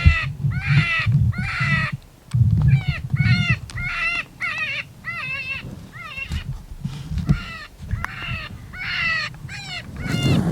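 A quick run of short yelping cries, each rising and then falling in pitch, about two a second, over a low rumble.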